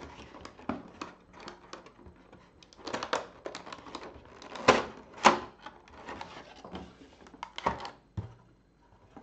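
Cardboard product box being opened by hand: a run of scrapes, taps and rustles as the flap is worked open and the contents slid out, the two sharpest about five seconds in. Near the end a clear plastic packing tray is handled with light clicks.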